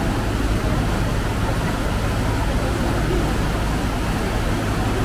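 Water rushing into a canal lock chamber through the sluices at the foot of the closed lock gates as the lock fills: a loud, steady rush with a low, steady hum beneath it.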